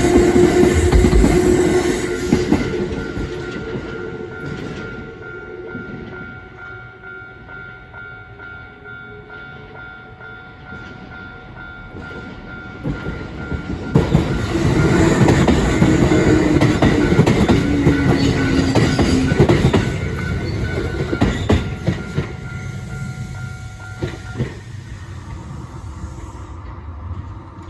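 Two Kintetsu Nagoya Line electric trains pass a level crossing. The first is finishing its pass as the sound begins, and the second runs through loudly from about halfway, with wheel clatter and a falling motor whine. The crossing's warning signal sounds steadily until it cuts off a few seconds before the end.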